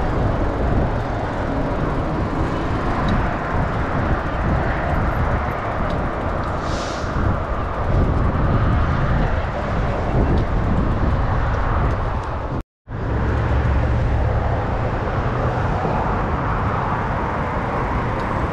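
Steady rushing and low rumbling of wind on the camera's microphone while riding a bicycle. About two-thirds of the way through, the sound cuts out completely for a split second.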